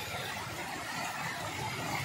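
Fast, turbulent floodwater rushing across a flooded road and pouring over a concrete edge: a steady rushing noise.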